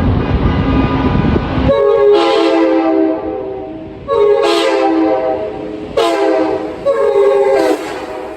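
Nathan Airchime K5LA five-chime train horn (a 1990s parts build) sounding a chord in four blasts: two long, then two shorter ones. A rush of air opens each blast, and the chord's pitch sags as the last blast cuts off. A low rumble comes before the first blast.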